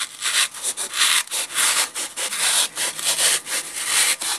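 Utility knife blade sawing back and forth through a green foam block, a scratchy rasp at about three strokes a second.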